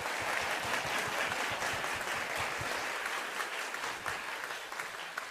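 Audience applauding, many hands clapping steadily, beginning to die away near the end.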